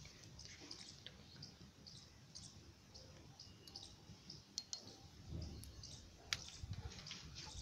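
Near silence: faint room noise with a few soft clicks.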